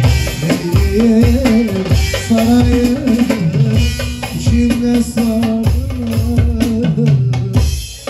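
Instrumental break of a Turkish folk song: long-necked bağlama saz and keyboard playing a wavering melody over a busy drum beat, stopping abruptly near the end.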